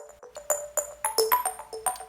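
Background music: a quick run of bright plucked or struck notes, about four a second, each ringing briefly.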